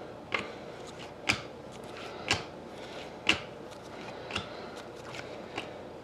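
Upper Deck Trilogy hockey trading cards being flipped through one by one, a crisp card snap about once a second, six in all.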